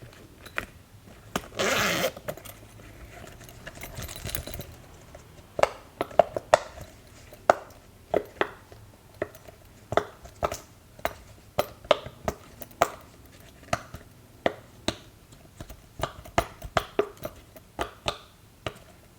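Silicone pop-it fidget toy being pressed, its bubbles popping with sharp clicks, irregular at about two or three a second, after a short rustle of handling near the start.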